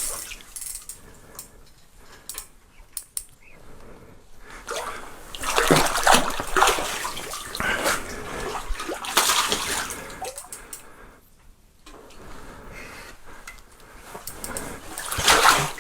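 Water splashing in several bursts as a large hooked trout thrashes at the surface while being brought in and landed.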